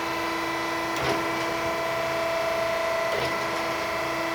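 Okamoto ACC-1224DX surface grinder running in automatic cycle: a steady machine hum with a whine from the wheel spindle and hydraulic pump. There are light clicks about a second in and again near three seconds.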